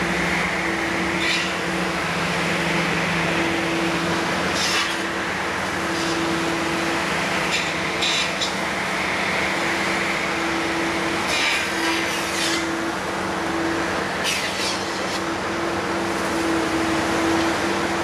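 Rail-mounted tree-trimming machine at work: its engine runs steadily with a low hum, a higher humming tone keeps starting and stopping, and short crackles come now and then as the boom saw cuts into branches.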